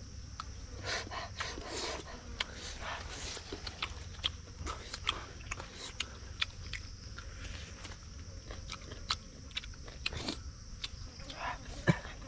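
A person biting and chewing roasted meat by mouth, with many small, irregular crunching clicks.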